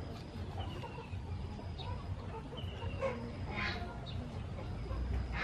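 Chickens clucking, with a few short calls, the clearest about three and a half seconds in and another at the very end. A knife is slicing limes on a wooden chopping board.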